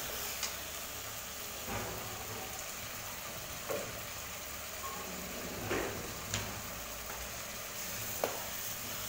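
Sliced onions sizzling as they deep-fry in hot oil in a kadai, with a steady hiss. A slotted metal spoon stirs them, knocking and scraping against the pan a few times.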